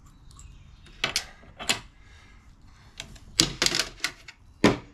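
Sharp mechanical clacks from a MEC shotshell reloading press as a plastic hull is set into its resizing station: a few single clacks, then a quick cluster about three and a half seconds in and one more near the end.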